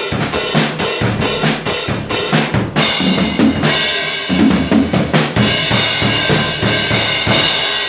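Acoustic drum kit played hard: a steady beat of bass drum and snare, then about three seconds in a change to ringing cymbal crashes over drum hits.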